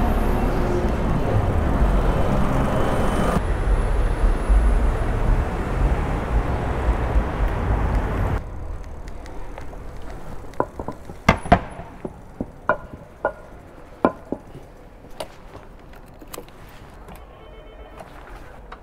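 Wind rushing over the camera microphone and traffic noise while riding an electric bike, cutting off abruptly about eight seconds in. Then a quieter street with scattered sharp clicks and knocks, and a faint repeating ring from a door intercom near the end.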